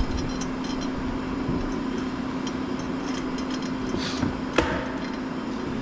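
A steady mechanical hum with background noise, broken by two short sharp knocks about four seconds in and half a second apart.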